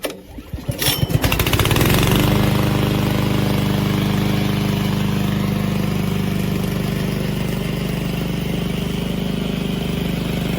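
Gasoline engine on a remote-control lawn mower being pull-started. The engine catches within about two seconds, then settles into steady running.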